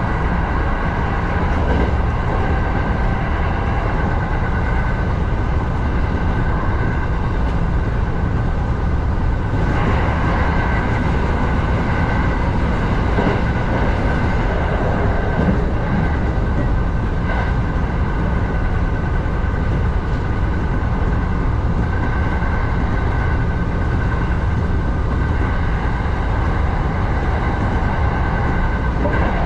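Kintetsu 7000-series electric train running at speed, heard from the driver's cab: a steady rumble of wheels on rail with a faint steady high hum. About ten seconds in it grows fuller and brighter for several seconds as the train passes through a short tunnel.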